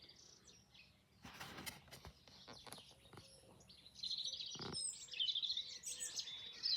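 Small songbirds chirping and twittering, louder from about four seconds in. A few brief clicks and rustles come between about one and three seconds in.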